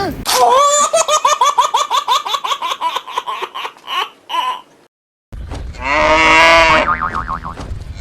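High-pitched laughing in quick repeated bursts, about seven a second, for roughly four and a half seconds. It stops abruptly, and after a brief silence a loud, sustained, pitched sound with a wavering pitch begins.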